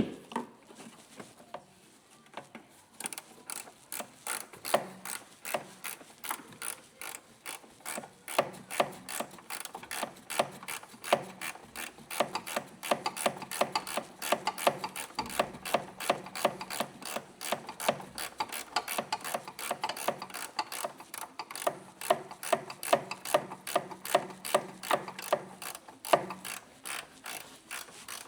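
Hand ratchet wrench clicking in a steady run of about three to four clicks a second as it is worked back and forth on a fastener during coilover reassembly. The clicking starts about three seconds in and stops shortly before the end.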